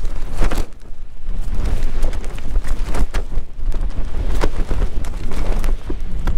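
Strong wind gusting against a small tent: the fabric walls flap and snap in quick, irregular cracks over a deep, steady buffeting rumble.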